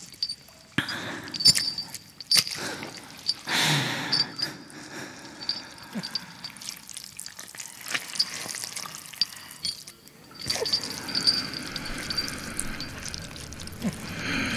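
Liquid dripping and wet squelching, with many small sharp clicks. A louder rushing swell comes about three seconds in.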